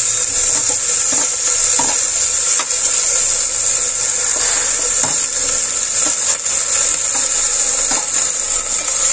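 Hot oil sizzling steadily in a pressure cooker as green peas and chopped vegetables are tipped in off a steel plate, with a few light clinks of the spoon against the plate.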